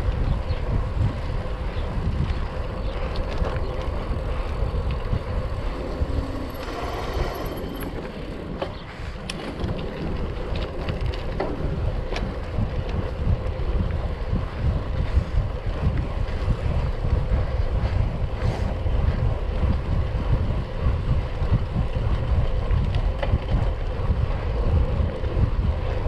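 Wind rushing over the microphone of a moving road bike, over a steady low rumble from the tyres rolling on the path.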